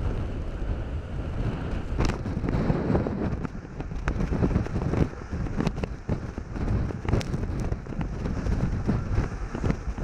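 Typhoon-driven surf crashing against rocky sea cliffs, with strong gusting wind buffeting the microphone: a dense low rumble broken by frequent sharp cracks.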